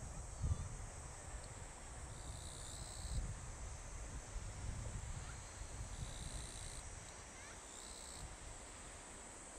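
Summer insects droning in a steady high chorus, with a second layer of buzzing that switches on for about a second, twice, over a low wind rumble.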